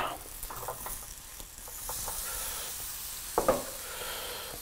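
Pork chops sizzling steadily on a hot round tabletop grill plate, with a few light clicks near the start and a short knock about three and a half seconds in.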